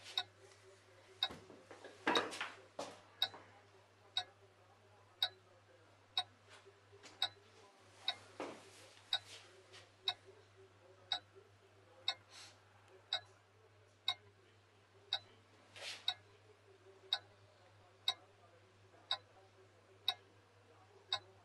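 A clock ticking steadily, about one tick a second, over a low electrical hum, with a few brief soft rustles of handling.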